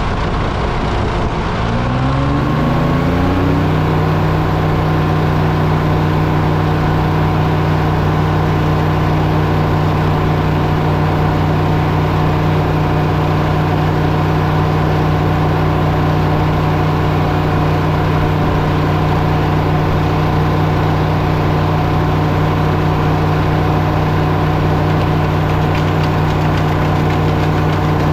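An engine speeds up over about three seconds, then runs steadily at a constant speed.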